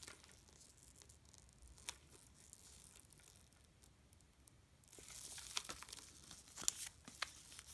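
Faint handling of a Chanel lambskin flap bag: a low rustle of the leather being turned over, then from about five seconds in, light clinks and rustling as its gold chain strap, with leather woven through it, is lifted and moved.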